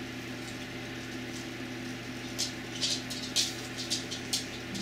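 Light, irregular clicks and taps from silver rods knocking against a glass jar as they are set in place, starting about halfway through, over a steady low electrical hum.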